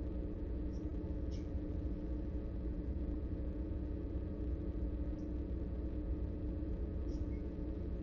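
A motor running with a steady low hum that does not change, with a couple of faint small ticks over it.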